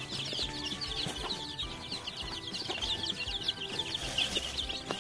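A brood of ayam kampung chicks peeping continuously, many high-pitched chirps overlapping.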